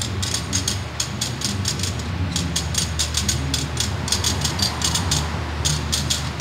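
Thin metal radiator tubes clicking and clattering in quick runs as a hand sweeps them apart into the slots of a radiator core assembler's comb, several runs in a row, over a steady low machine hum.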